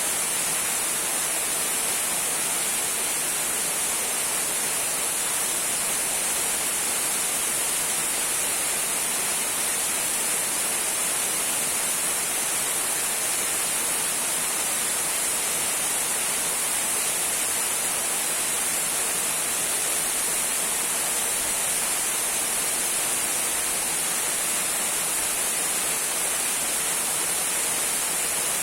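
Small waterfall trickling: a steady, unchanging hiss of falling water, brightest in the highs, with no pauses or splashes that stand out.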